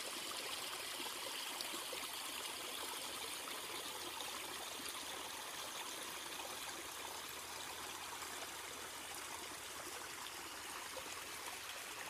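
Water trickling steadily over stones and pebbles in a small man-made garden creek.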